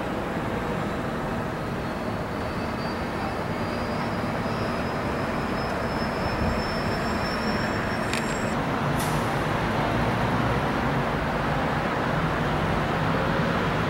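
Steady city background noise, mostly distant traffic hum, getting slightly louder toward the end. A faint high whine runs through the middle, and two short clicks come about eight and nine seconds in.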